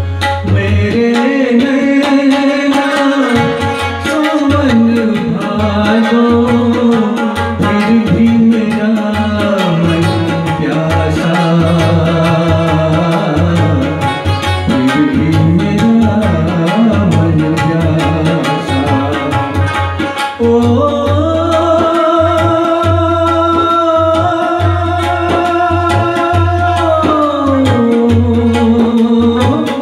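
Tabla, harmonium and rubab playing a song passage: a tabla rhythm with deep bass-drum strokes under a gliding melody, which settles into long steady held notes about twenty seconds in.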